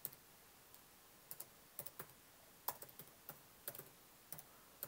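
Computer keyboard being typed on: quiet, irregularly spaced keystrokes entering a command, about a dozen key presses.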